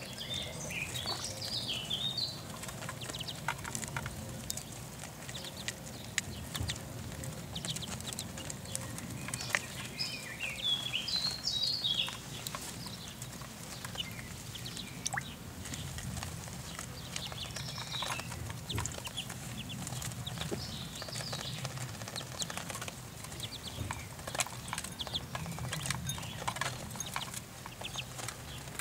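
A flock of ducklings feeding, with bursts of high peeping now and then over many quick pecking clicks of bills at grain and lettuce. A steady low hum runs underneath.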